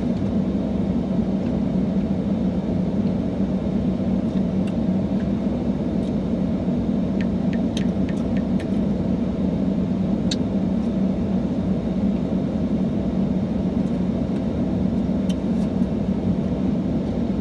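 Steady low rumble of a running car heard from inside the cabin, with a few faint ticks in the middle.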